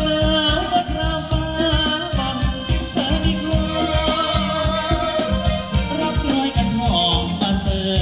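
Band music for Thai ramwong folk dancing, with a steady drum beat under a wavering sung melody.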